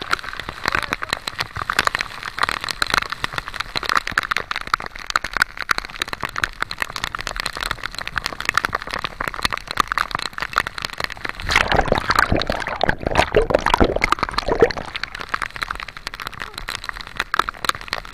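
Heavy rain pelting the sea surface, a dense crackling patter close to the microphone. From about twelve to fifteen seconds in, a louder, deeper rush of water and splashing.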